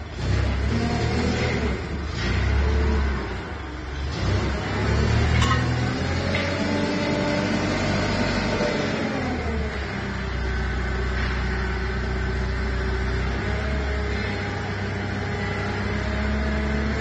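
2-ton diesel forklift engine running under load as the truck manoeuvres and works its hydraulic paper-roll clamp. The engine note rises and falls several times, most clearly in the middle, with a sharp click about five seconds in.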